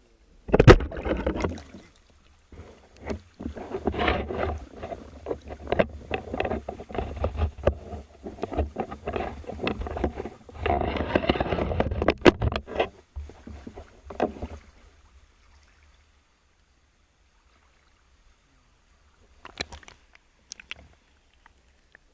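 Water sloshing and splashing around the camera as a diver moves through it, in a run of uneven rushes for about fourteen seconds, then quiet apart from a few faint knocks near the end.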